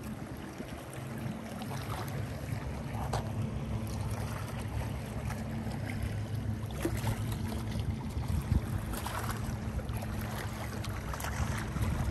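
A low, steady motor hum, with wind buffeting the microphone.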